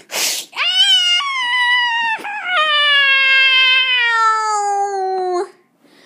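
A person's voice giving one long, high wailing cry that slides slowly down in pitch, with a brief break about two seconds in, after a short rushing burst at the very start. It is a mock dying cry, voiced for a stuffed toy in a play fight to the death.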